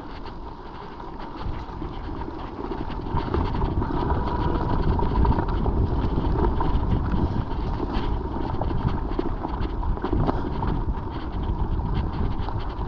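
Mountain bike riding over a rough trail, recorded on the bike: wind buffeting the microphone and tyre rumble, growing louder about three seconds in, with a constant clatter of small knocks and rattles.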